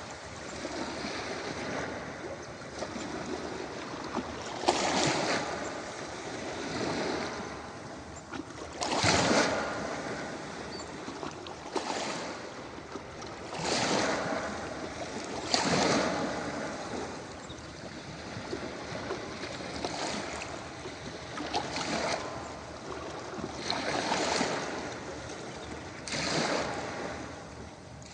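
Ocean waves breaking and washing up on a beach: a steady rush of surf with a louder swell every few seconds, the biggest about nine seconds in.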